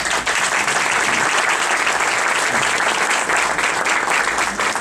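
Audience applauding: a roomful of people clapping, starting suddenly, holding steady and thinning out near the end.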